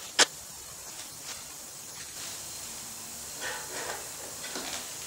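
Objects being handled on a tabletop: one sharp click just after the start, then a few soft, brief rustles and scrapes over a faint steady hiss.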